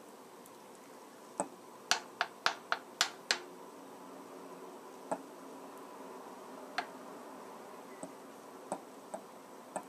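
Ground pork patties frying on low heat in olive oil, a faint steady sizzle. Over it come sharp clicks of a metal spoon tapping the frying pan as the patties are shaped: a quick run of taps about two seconds in, then single ones every second or so.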